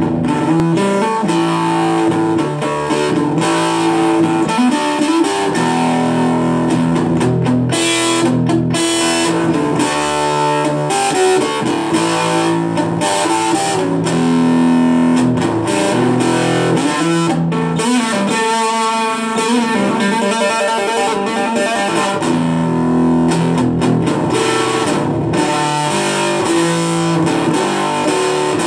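Solid-body electric guitar playing an instrumental passage of chords and ringing notes.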